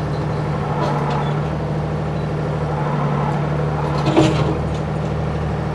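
Ford 555 backhoe's diesel engine running steadily under load while dragging a boulder on a chain, with a sharp metallic clank about four seconds in.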